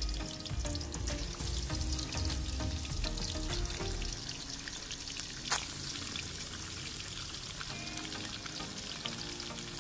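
Marinated chicken pieces sizzling and crackling as they are dropped one by one into hot ghee in an aluminium pan, with a steady frying hiss. A single sharp clack about five and a half seconds in.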